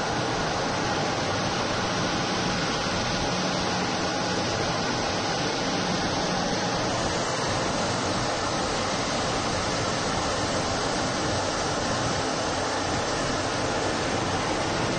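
Steady rushing noise of jet engines and airflow inside an aircraft cockpit in flight, unchanging throughout, with faint steady hums beneath it.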